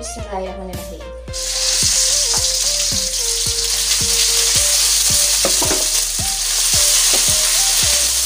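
Ground spice paste of garlic, shallots, candlenut, turmeric and ginger dropped into hot oil in a wok, sizzling as it starts to sauté, with a spatula stirring it. The sizzle starts suddenly about a second in and then stays steady.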